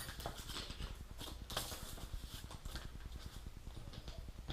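Electrical wires being handled and pushed through a car wiring harness laid on plywood: irregular light taps, clicks and rustles, over a steady low hum.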